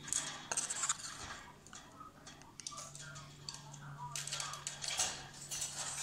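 Metal wire birdcage clinking and rattling in a run of irregular sharp clicks, over a steady low hum.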